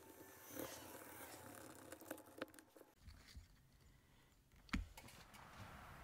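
Near silence: faint room tone with a few light clicks, and one sharper knock near the end.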